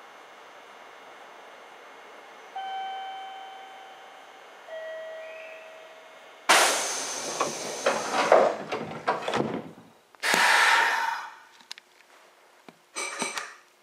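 Meitetsu electric train at a station stop: two chime tones, the second lower, then the doors closing with a sudden loud thud and a rushing noise that dies away over a few seconds. A second hissing rush about a second long follows, and a shorter burst near the end.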